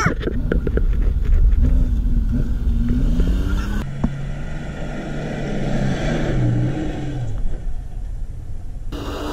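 Pickup truck engine revving as the truck climbs a sand dune, its pitch rising and falling, with heavy wind rumble on the microphone. It opens with a quick falling whine, and about four seconds in the sound changes abruptly to a steadier engine note.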